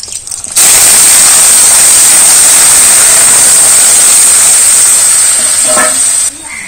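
Turmeric water with vegetable pieces poured into hot oil tempered with cumin and bay leaf in a karai, setting off a loud, steady sizzling hiss that stops abruptly near the end.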